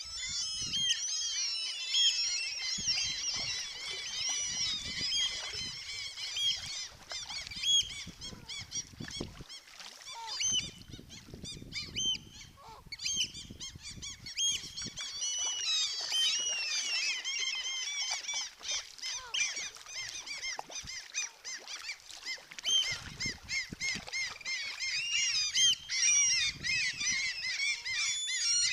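A flock of seabirds calling, with many short, high calls overlapping continuously.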